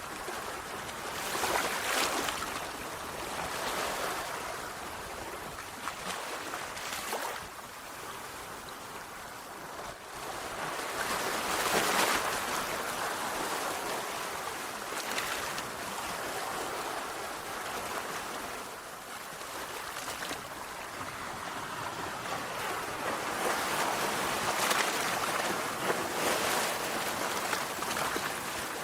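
Sea waves breaking on a shore, a steady wash of surf that swells and eases, with stronger breakers at irregular intervals of a few seconds.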